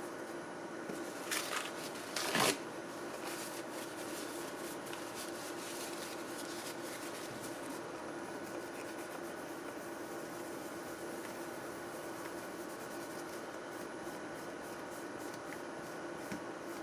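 Tissue paper rustling and rubbing as old thermal paste is wiped off the CPU and heatsink, with two short louder bursts in the first few seconds, over a steady background hum.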